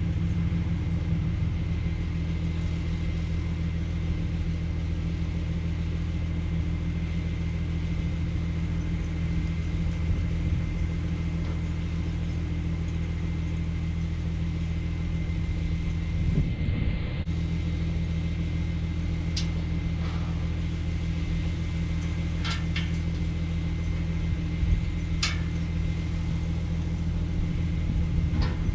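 An engine running steadily at one constant speed, a low drone. A few light clicks come in the second half.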